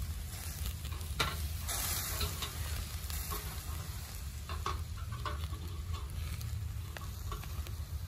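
Lamb liver, heart and kidney kebabs sizzling on a grill grate over charcoal, with several sharp clicks of the metal skewers knocking against the grate as they are turned.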